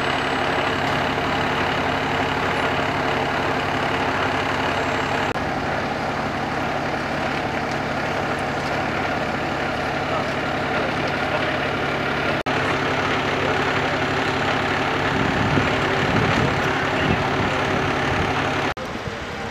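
Heavy vehicle engine idling steadily at an even pitch, turning quieter near the end.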